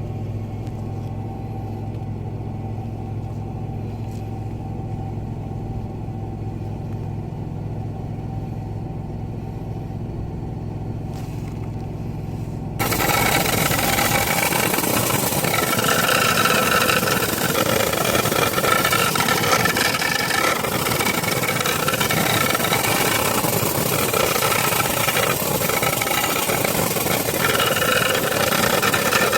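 A steady low mechanical hum, then, about thirteen seconds in, an abrupt switch to a louder, steady rushing, hissing noise.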